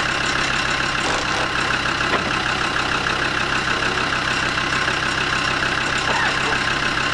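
A steady mechanical drone with a hiss, unchanging throughout, with a couple of faint clicks about one and two seconds in.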